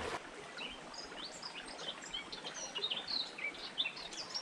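Songbirds chirping and singing in the woodland, many short high calls coming thicker toward the end, over the faint steady rush of a shallow stream.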